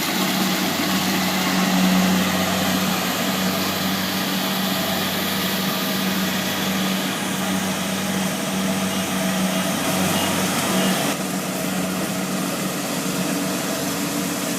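Kubota DC70 Plus combine harvester's diesel engine running steadily, a constant drone with a strong low hum; it drops slightly in level about eleven seconds in.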